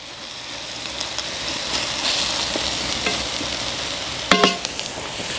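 Lamb and vegetables sizzling in a cast-iron Dutch oven over a wood fire, with a wooden spatula stirring and scraping through them. The sizzle grows louder over the first couple of seconds. A short hummed voice sound about four seconds in.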